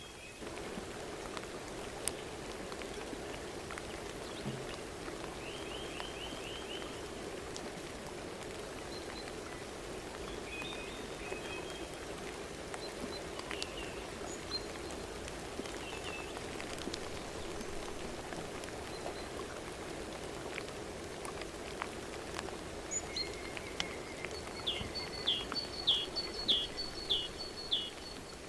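Outdoor ambience of birds calling over a steady low rushing background with scattered sharp ticks. There are short chirps from time to time, and near the end a bird gives a run of about seven quick, downward-sweeping notes, the loudest sound here.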